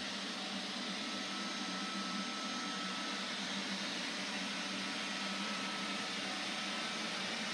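Neato XV-21 robot vacuum running steadily as it drives across a hardwood floor: a constant noisy hum with a faint high tone.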